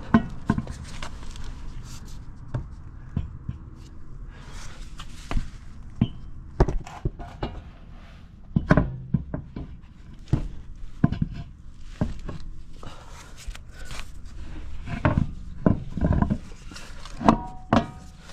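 Irregular knocks, clunks and scrapes of a truck wheel and tire and hand tools being handled while the wheel goes back onto the hub, with a few short metallic clinks near the end.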